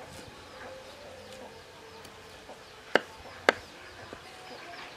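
Cleaver chopping herbs on a round wooden chopping block: two sharp knocks about half a second apart, around three seconds in, over faint chirping in the background.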